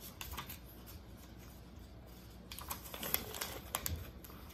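Sheets of paper being shuffled and handled in a search for a drawing: scattered light rustles and ticks, busiest from about two and a half to four seconds in.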